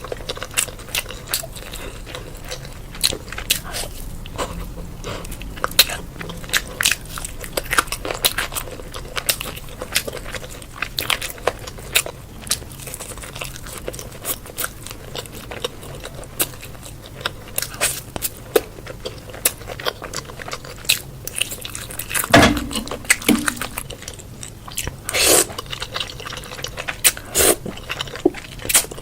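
Close-miked eating sounds: steady chewing and biting with many quick, crisp mouth clicks and crunches, and one louder, fuller bite or gulp a little over two-thirds of the way through.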